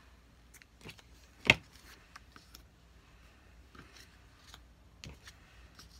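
Scissors and paper being handled on a craft cutting mat: scattered light clicks and rustles, with one sharp click about a second and a half in.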